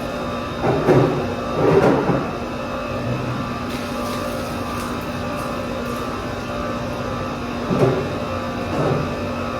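A steady mechanical hum holding several even tones. Four short, louder sounds stand out over it: two about a second and two seconds in, and two more near the end.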